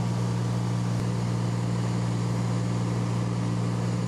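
Steady drone of an aircraft's engine heard on board in flight, an even low hum with a constant rushing noise over it.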